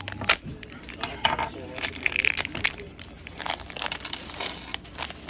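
A thin plastic bag of small plastic building-brick pieces crinkling as it is handled and torn open, with the pieces clicking and rattling against each other.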